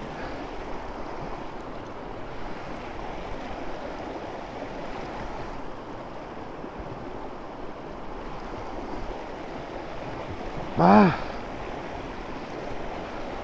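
Steady rush of flowing river water, with no engine running. A brief shout about eleven seconds in.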